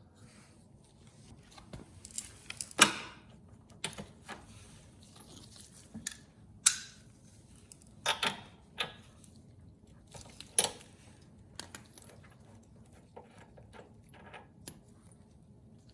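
Scattered metallic clicks and clinks of hand tools and small metal parts being handled while working on a lawn mower engine, with a few sharper clanks, the loudest about three seconds in and again near the middle.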